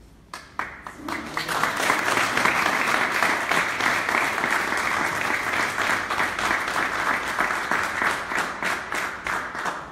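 Audience applauding: a few scattered claps, building into full, dense applause within about a second and a half.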